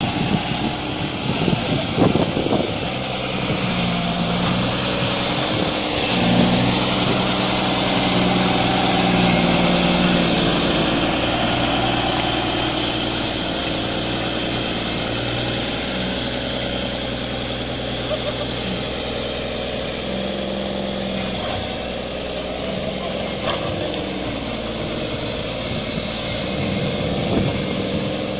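Heavy diesel engine running steadily, its pitch rising and falling now and then as the revs change.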